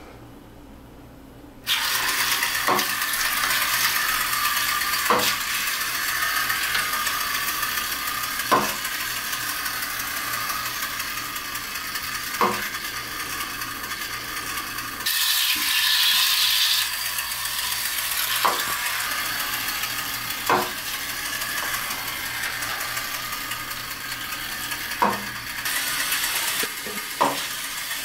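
Wind-up clockwork toy boat running in bathwater: its spring motor starts a steady whir about two seconds in and keeps going. Sharp clicks come every few seconds at uneven gaps.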